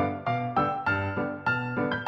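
Background music: a keyboard melody of short, evenly spaced notes, about four a second, each struck and fading.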